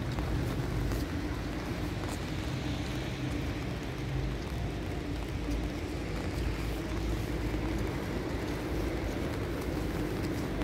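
Steady city street noise in the rain: a low, even hum of traffic with the wet hiss of rain-soaked streets.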